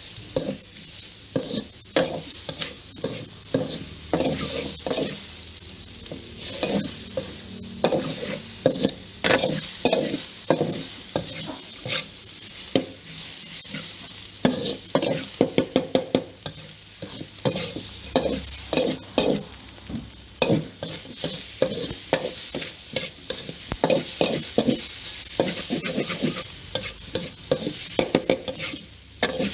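Food frying and sizzling in a hot pan while a utensil stirs, scrapes and clatters against the pan in quick, irregular strokes, with short bursts of rapid strikes: stir-frying.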